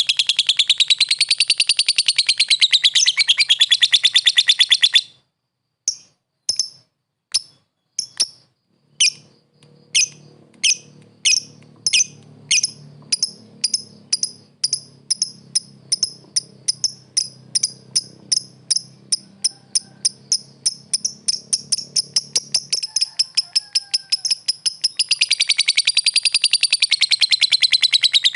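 Lovebird calling: a rapid, high-pitched chattering trill that cuts off about five seconds in. After a short pause, single sharp chirps return, widely spaced at first and quickening into a fast run that merges back into the continuous chatter near the end.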